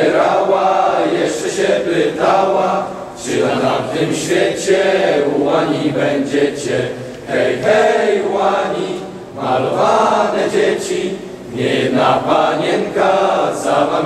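A group of voices singing together in sung phrases a few seconds long, with short breaks between them.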